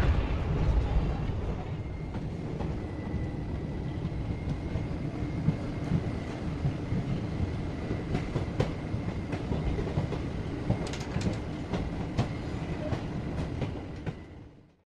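Passenger train running, heard from inside an AC chair car: a steady rumble with scattered wheel clicks over rail joints. The rumble is louder for the first couple of seconds, then quieter with a thin steady tone, and it fades out near the end.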